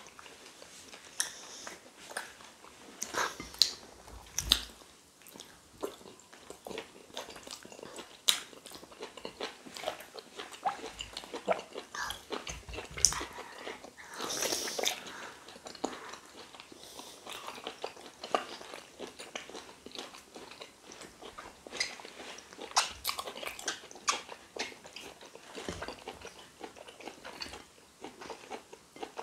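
Close-up mouth sounds of people eating egusi soup and fufu with their hands: an irregular run of wet chewing, lip smacks and small clicks.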